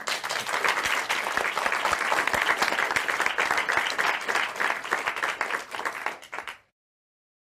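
Crowd applause: many hands clapping in a dense, even patter that fades and then cuts off about six and a half seconds in.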